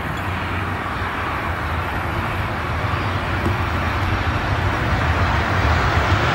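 Jet engine noise from a British Airways Airbus A319-131 airliner on short final to land, its IAE V2500 turbofans giving a low hum under a broad rushing noise that grows steadily louder as the plane comes closer.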